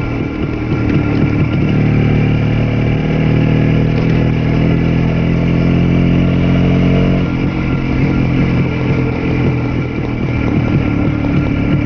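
Vintage ČZ single-cylinder two-stroke motorcycle engine running as the bike rides along at a steady pace, heard from the rider's seat. About seven seconds in, the even engine note turns rougher and uneven.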